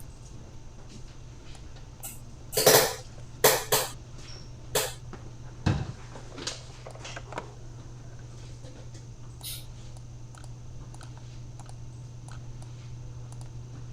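Scattered sharp clicks and knocks, a loud cluster a few seconds in and fainter ones after, over a steady low electrical hum.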